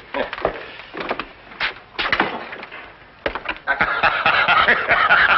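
Footsteps and knocks of a man walking out through a door, a sharp tap every half second or so, then a denser stretch of noise for the last second and a half.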